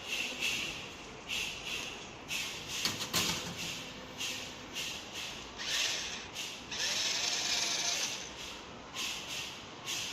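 A small toy electric motor and its plastic gears whirring in short bursts again and again, with one longer run of about a second and a half near the two-thirds mark.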